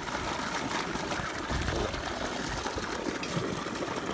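Live freshwater snails in water in a steel pot, their shells clicking and rattling against each other and the pot as a hand stirs through them.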